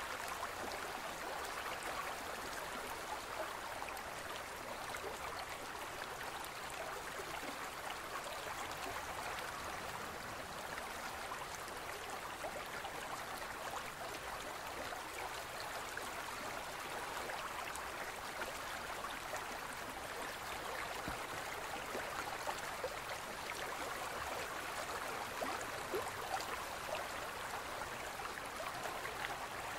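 A gentle stream flowing: a steady, even rush of running water.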